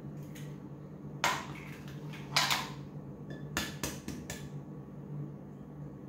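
Eggs being cracked open by hand over a blender jar: a few sharp cracks and clicks of breaking shell, the loudest about two and a half seconds in, over a faint steady low hum.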